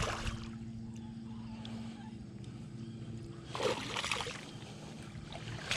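A hooked smallmouth bass thrashing at the water's surface beside a boat, splashing once at the start and again for a moment about three and a half seconds in, over a steady low hum.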